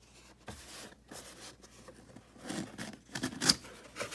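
Packaging being handled and unwrapped to get at the next boxed Funko Pop: irregular rustling, scraping and tearing, with a sharp crackle about three and a half seconds in.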